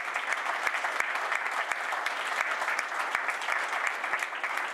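A roomful of guests applauding, many hands clapping at a steady level.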